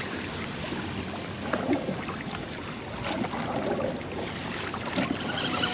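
Wind buffeting the microphone over choppy water lapping against a small inflatable boat, with a few faint knocks.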